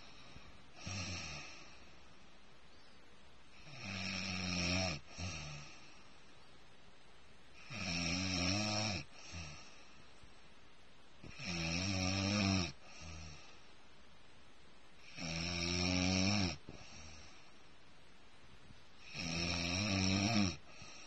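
Snoring: six snores about four seconds apart, each lasting a second or so, with a short softer breath after most of them.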